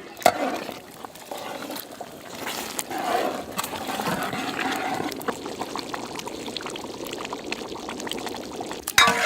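Liquid pouring into a cooking pot, an uneven, continuous watery splashing with small clicks.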